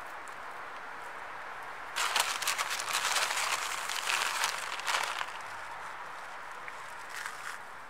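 Plastic bag crinkling and rustling for about three seconds, starting about two seconds in, as crushed biscuit crumbs are shaken out of it; a shorter, fainter rustle near the end.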